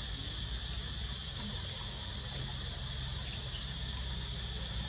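A chorus of insects buzzing steadily and high-pitched over a low steady rumble.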